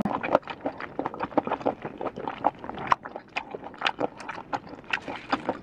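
Close-miked mouth chewing a mouthful of snail meat with the lips closed: a rapid, irregular run of wet clicks and smacks.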